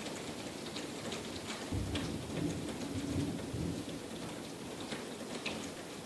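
Heavy rain pouring down, with a low rumble of thunder swelling about two seconds in and fading a second or two later.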